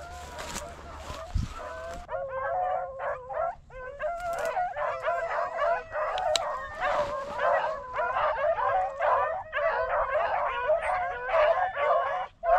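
A pack of rabbit dogs baying and howling together as they run a rabbit on the scent, many voices overlapping. The chorus fills in and grows louder about two seconds in.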